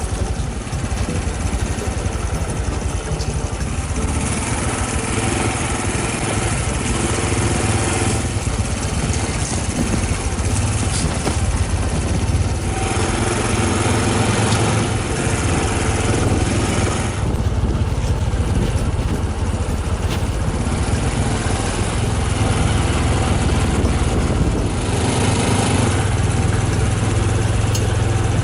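Honda CT125 Hunter Cub's single-cylinder four-stroke engine running under way, its note changing every few seconds.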